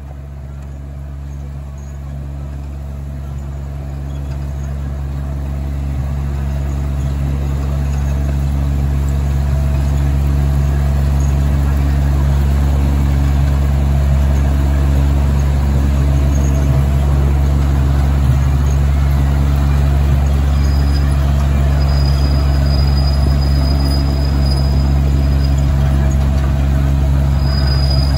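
Ride-on miniature park train running along its track: a steady low drone that grows louder over the first ten seconds or so, then holds steady.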